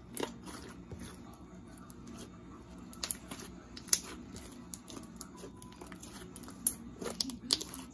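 Thick slime being kneaded and squeezed by hand, with a run of sharp wet clicks and pops from trapped air, the loudest about four seconds in and twice near the end.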